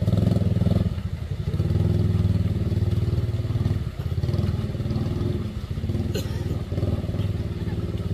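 Small motorcycle engine revving in swells, straining under load as it is pushed up a steep mud slope. A short sharp click about six seconds in.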